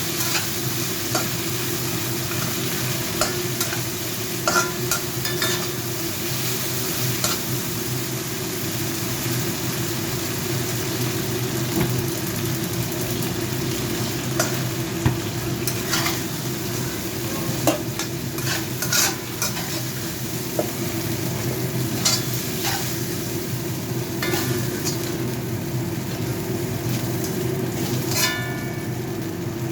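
Chicken legs sizzling as they fry in hot oil in a pan, with scattered clicks of a utensil against the pan. A steady low hum runs underneath.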